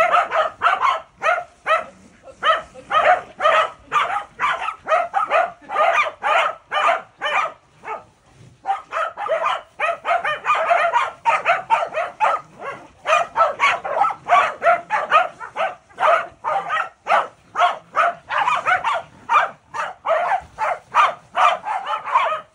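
Welsh corgis barking over and over, two to three barks a second, with a brief pause about eight seconds in.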